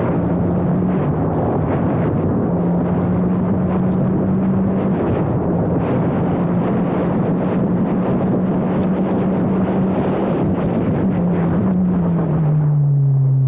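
Formula Abarth single-seater's turbocharged four-cylinder engine running hard at nearly steady revs under a heavy rush of wind and road noise. Near the end the engine note drops and the rush fades as the driver lifts off.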